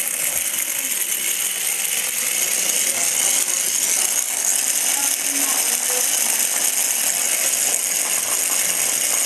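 Hexbug Bobble Bot toys buzzing and rattling steadily as their vibration motors drive them across a hard floor.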